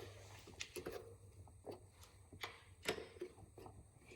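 Faint, scattered metal clicks and scrapes of hand tools working the cotter pin out of a motorcycle axle's castle nut, the loudest click about three seconds in.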